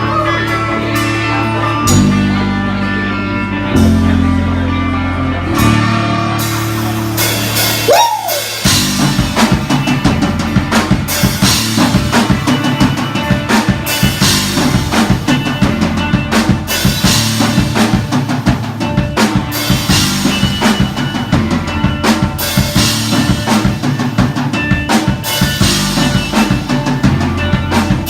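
Band playing an instrumental passage: held low chords change about every two seconds, then after a short break about eight seconds in, the drum kit comes in with a fast, busy beat with bass drum and snare.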